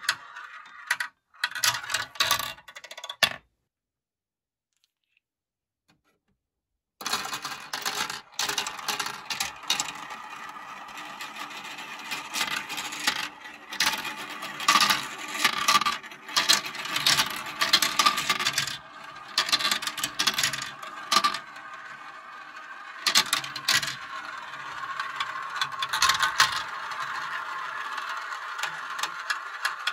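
Small plastic balls rolling and dropping through a plastic marble run, clicking and rattling against the chutes and funnel bowls. A few sharp clicks, then a few seconds of silence, then a continuous rolling rattle with frequent clacks as several balls circle the funnels at once.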